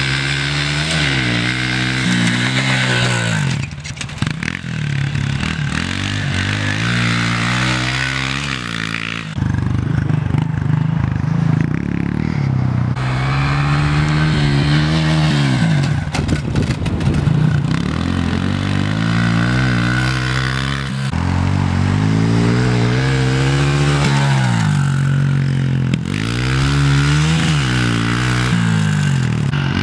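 Pit bike engine revving up and easing off again and again, its pitch climbing and dropping as the rider rides the dirt track. The sound jumps abruptly several times.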